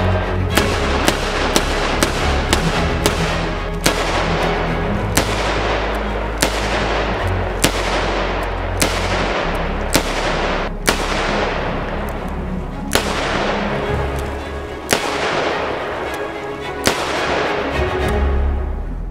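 A long string of shots from a Kimber K6s DCR .357 Magnum revolver with a 2-inch barrel, each sharp crack trailing off in an echo. The shots come quickly, about two a second, near the start, then spread out to one every second or two. Background music plays under them.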